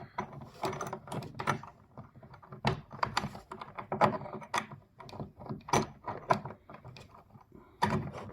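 Hands handling and connecting the air conditioner's parts and leads: irregular clicks, taps and knocks of hard parts.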